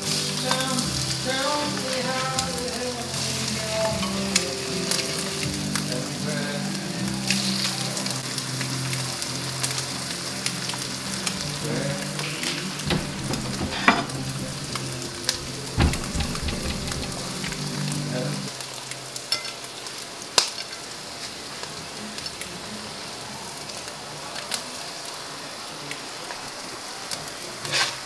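Food sizzling as it fries in a skillet on the stove, with a few sharp clinks and scrapes of a spatula against the pan.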